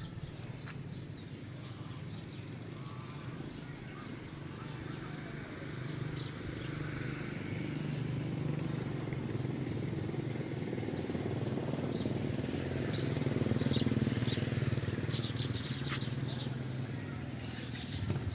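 Street ambience: a motorcycle engine runs with a low hum that grows louder toward the middle, while short high chirps of small birds come and go, most of them near the end.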